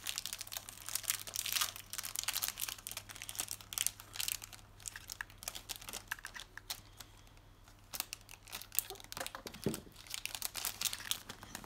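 Thin clear plastic packaging crinkling and rustling in irregular crackles as felt-tip markers are unwrapped and pulled out of it.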